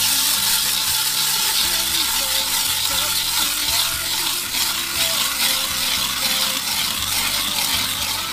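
Hand ice auger being cranked through lake ice, its blades shaving the ice with a steady grinding scrape.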